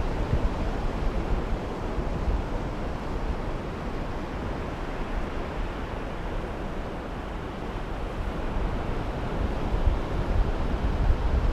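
Wind buffeting the microphone in uneven gusts, stronger near the end, over a steady wash of sea surf.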